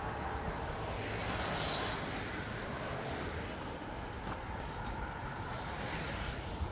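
Steady outdoor street ambience with a low rumble of distant road traffic.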